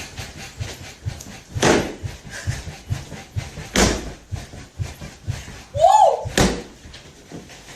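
Rhythmic banging against a wall, done to mock noisy sex next door: steady low thumps about two a second, with three much louder slam-like bangs spread through and a brief rising-and-falling squeal just before the last one.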